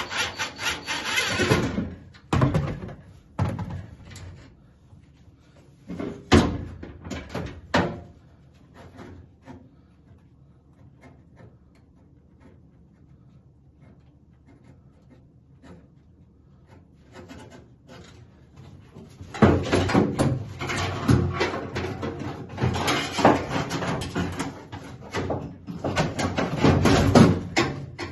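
Metal door hardware (latch, lock linkage rods, screws and brackets) being handled and worked loose: a few separate sharp knocks and clanks, a quiet spell, then a long run of close clattering and rattling over the last third.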